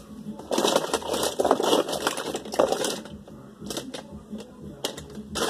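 Toy cars and trucks clicking and clattering against each other as a pile of them is rummaged through by hand, in uneven bursts.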